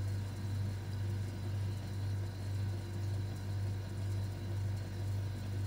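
Steady low background hum, unchanging throughout, with no other distinct sound.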